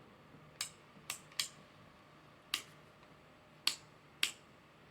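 Six short, sharp clicks at uneven intervals over a faint steady hum.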